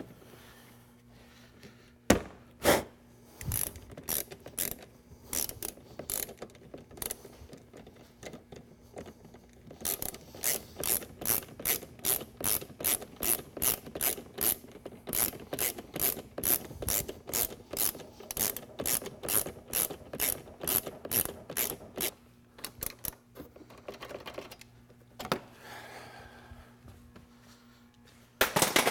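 Hand ratchet wrench with a long extension clicking as it tightens the bumper bolts. A few single clicks come first, then a steady run of about three clicks a second for roughly twelve seconds, with a couple of louder knocks near the end.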